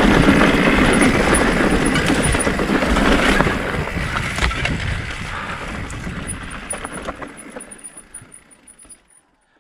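Mountain bike riding noise picked up by a bike-mounted or helmet camera: wind rush and tyres rolling over rough ground, with scattered rattling clicks. It fades out steadily over the last few seconds to silence.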